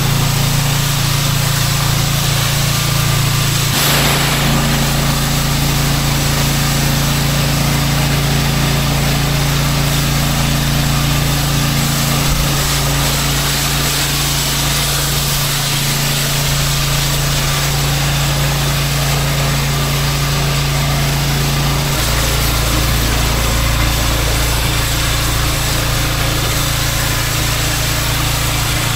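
Pressure washer's engine running steadily under load, with the hiss of high-pressure water spraying onto the paving. The engine note shifts slightly about four seconds in and again near the end.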